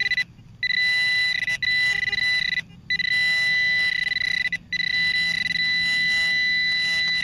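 Handheld metal-detector pinpointer held against the sidewall of a dig hole, sounding a steady, high, continuous alert tone. The tone cuts out briefly three times as the probe is moved, and it is the sign that the tip is close to a buried metal target.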